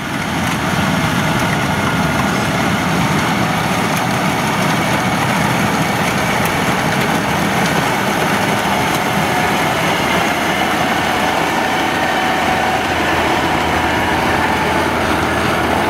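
Kubota tracked rice combine harvester running steadily while it cuts and threshes rice: an even, loud engine and machinery drone with a few steady whining tones above it. Its enlarged cutting header runs without clattering.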